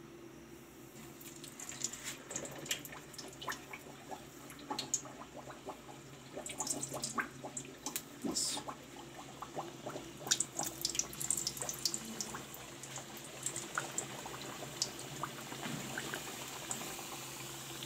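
Hot oil in a karahi sizzling, with irregular crackling and popping as snacks fry in it.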